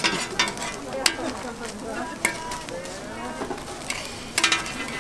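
Metal spatulas scraping and clinking on a flat griddle as a filled pancake is folded and pressed, over a low sizzle of frying. Sharp clinks come a few times, with a quick cluster near the end.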